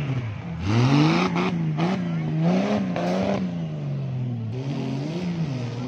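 Off-road competition buggy's engine revving hard, its pitch rising and falling again and again as the driver works the throttle, with bursts of rougher noise as the tyres spin and throw mud.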